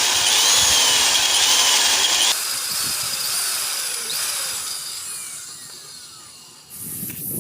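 Electric drill boring into a broken steel bolt stuck in a cylinder head, the bit squealing on the metal. The sound is loudest for the first two seconds, drops suddenly, then fades toward the end.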